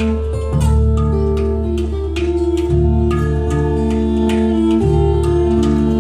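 A band playing instrumental folk music: an acoustic guitar, a bowed viola, an electric bass holding deep notes, and a hang-style handpan struck in short ringing notes.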